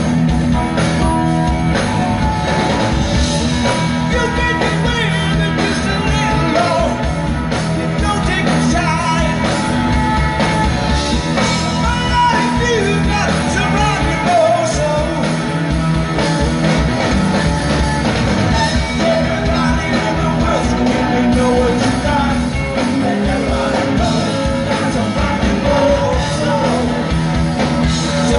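Live rock band playing through a concert PA, with a lead singer, heard from within the crowd.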